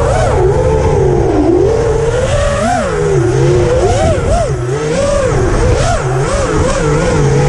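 FPV racing quadcopter's electric motors whining, the pitch swooping up and down quickly with the throttle, over a steady rushing noise.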